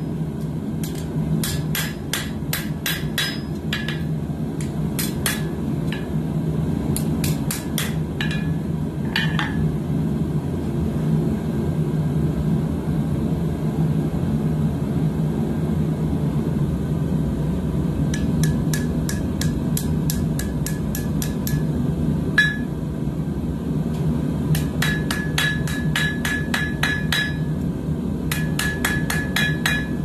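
Hand hammer striking hot coil-spring steel on an anvil while a knife blade is forged to shape, in bursts of quick ringing blows about four a second. The blows stop for several seconds in the middle, then resume. A steady low rumble runs underneath.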